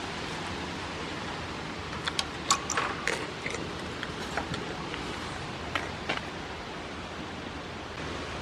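Goats crunching a hand-fed treat: a quick run of sharp crunching clicks about two to three seconds in and a few more around the middle, over a steady hiss.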